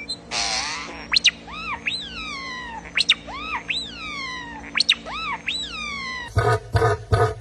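Bird calls: a sharp upward sweep followed by long falling whistles, repeated three times, then a rapid pulsed call about four times a second near the end.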